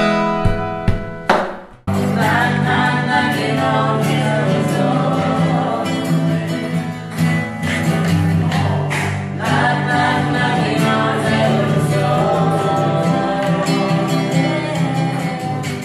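A few acoustic guitar notes, then about two seconds in a sudden cut to several voices singing together over an acoustic guitar.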